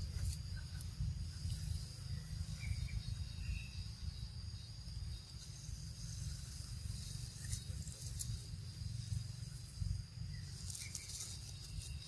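Outdoor ambience: a steady high-pitched insect drone over a low rumble, with a few short faint chirps.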